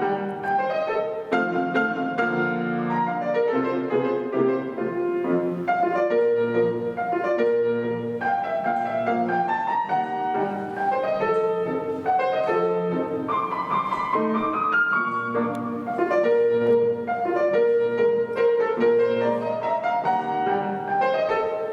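Solo piano playing a classical piece: quick successions of notes, with rising runs about a third of the way in and again near the end.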